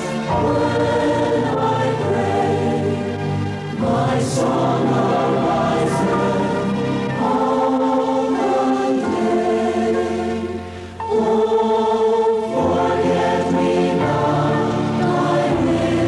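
A congregation singing a hymn together, long held notes changing every second or two, with short breaks for breath between phrases.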